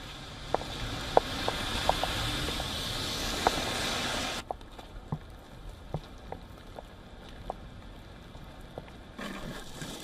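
Outdoor ambience: a steady rushing noise with scattered sharp clicks and knocks. It cuts abruptly to a quieter background with more clicks about four and a half seconds in.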